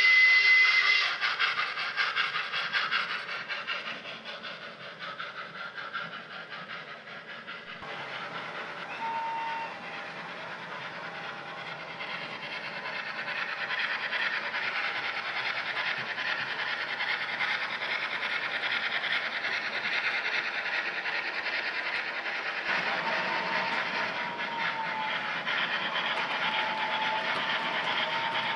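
OO gauge model steam locomotives with sound decoders: a whistle cuts off about a second in, then chuffing and the clatter of model wagons' wheels on the track, louder from about halfway through, with a thin wavering tone near the end.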